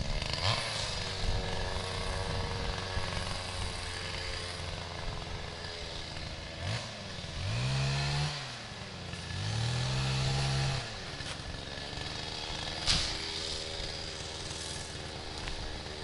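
Chainsaw idling, revved twice in quick succession about seven and nine and a half seconds in, each rev rising and dropping back to idle. A single sharp click about thirteen seconds in.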